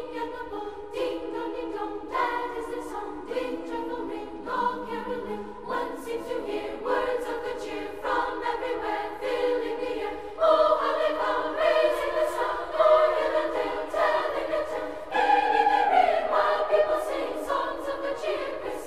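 Background music of a choir singing slow, sustained chords, the chords changing about once a second and growing louder about ten seconds in.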